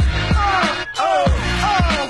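Background music with a heavy bass beat about twice a second and repeated falling melodic phrases over it.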